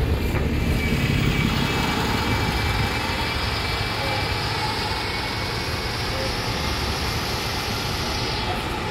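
Bus engine running close by, a steady low rumble with a hissing higher part that fades away near the end.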